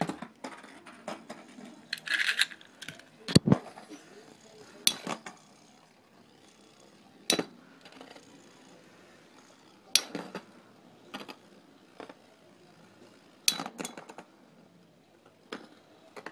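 Two metal Beyblade spinning tops clashing with each other and the stadium wall: sharp metallic clacks and clinks at irregular gaps of one to three seconds.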